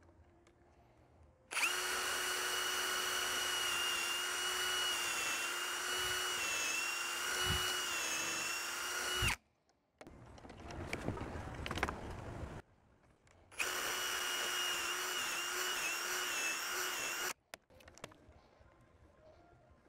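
Ryobi cordless drill boring through a wooden post with the bit guided by a drill guide. There is a steady whine for about eight seconds, a short stop, a rougher, noisier stretch of a couple of seconds, then a second steady run of about four seconds that cuts off.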